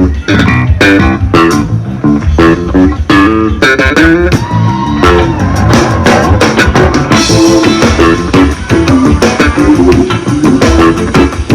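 Background music: a guitar-driven band track with bass guitar and drums keeping a steady beat.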